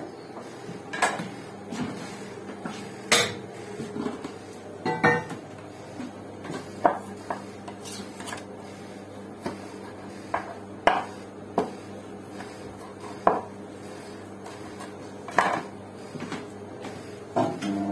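Butcher's knife cutting beef into chunks on a wooden chopping board: sharp, irregular knocks of the blade striking the board every second or two. About five seconds in there is one ringing metallic clink.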